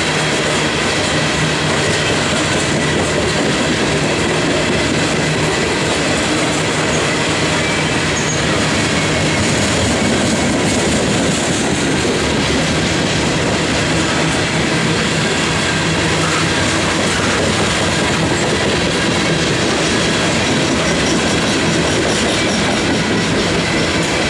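Loaded coal hopper cars of a freight train rolling past close by: a steady, loud rumble and rattle of steel wheels on the rails, with thin high squealing tones from the wheels running under it.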